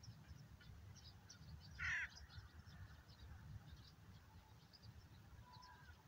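A crow gives one short caw about two seconds in, over faint high chirping of small birds and a steady low rumble. A few faint whistled bird notes come near the end.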